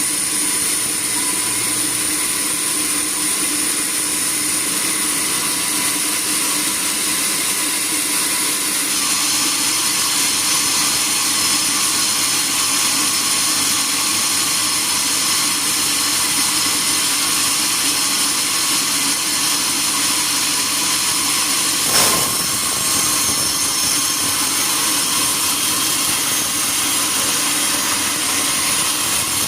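Sawmill machinery running steadily with a constant high whine. A further higher whine joins about a third of the way in, and there is one sharp knock about three-quarters of the way through.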